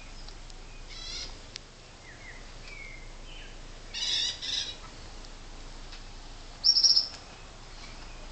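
Short high-pitched animal chirps: a few calls about a second in, a louder double call about four seconds in, and the loudest, a rapid run of high chirps, near the end.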